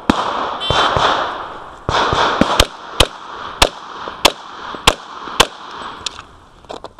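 A string of about ten pistol shots from a Glock 35 in .40 S&W, fired in quick succession at roughly half-second intervals, each report ringing out with a short echo.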